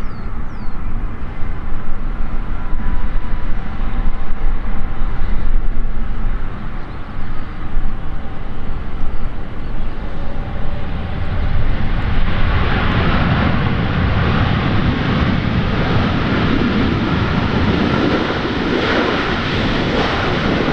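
Airbus A330-300 airliner landing: jet engines and a low rumble through touchdown and the start of the rollout, then about twelve seconds in the thrust reversers are deployed and the engines spool up into a loud, wide roar of reverse thrust.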